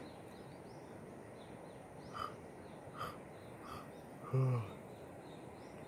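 Quiet outdoor ambience with faint, rapid bird chirping. About four and a half seconds in, a man makes one short, low vocal sound, with a few soft short blips just before it.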